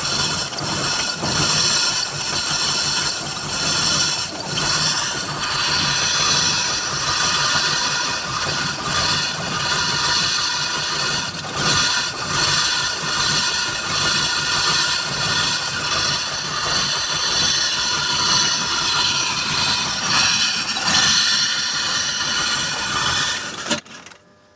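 BMW engine running after a hard start, struggling to keep going, then cutting out suddenly near the end.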